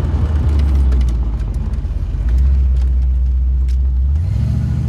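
Fox-body Mustang's 5.0 V8 engine running at low revs with a deep, steady rumble. About four seconds in, its note steps up as the revs rise.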